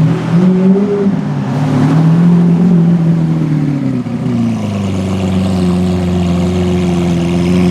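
Performance car engine revving, its pitch rising and falling through a couple of blips, then dropping about four seconds in to a steady lower note.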